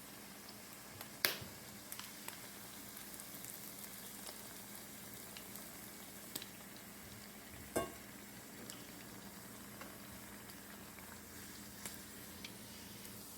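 Food frying in a pan: a faint, steady sizzle with scattered small pops. Two sharp knocks stand out, about a second in and a little past halfway.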